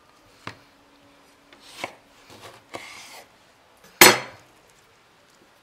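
Handling sounds of a lemon half being rubbed over a carp on a wooden cutting board: small knocks and brief rubbing scrapes, then one sharp knock on the wooden board about four seconds in, the loudest sound.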